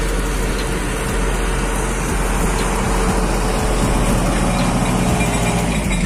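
Hattat 398 tractor engine working under load as it pulls a mounted plough through stubble. It passes close by, growing a little louder about halfway through.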